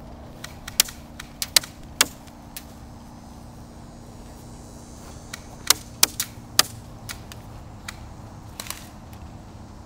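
Airsoft guns firing scattered single shots: sharp snaps in two clusters, one about a second in and one around six seconds in, with a few more near the end.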